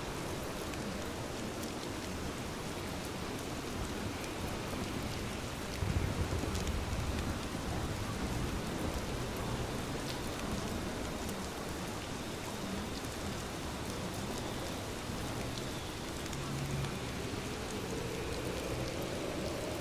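Steady rainfall, an even patter of drops. About six seconds in there is a brief low rumble.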